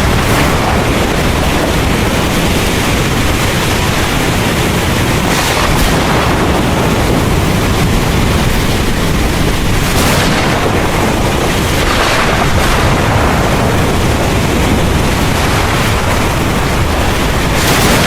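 Heavy rain pouring steadily, with a deep rumble of thunder underneath. The rain's hiss surges briefly a few times.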